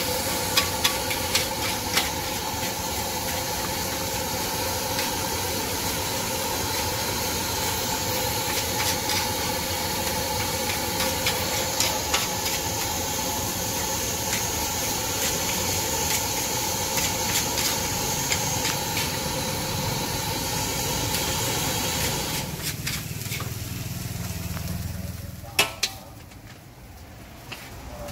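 Nasi goreng stir-frying in a wok over a gas burner: a steady hiss and sizzle with the metal spatula scraping and clanking against the wok. The sizzle dies down about three-quarters of the way through, and a few sharp knocks of the spatula on the wok follow near the end.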